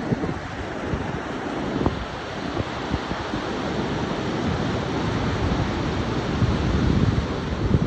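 Wind buffeting the microphone in uneven low rumbles over the steady wash of ocean surf.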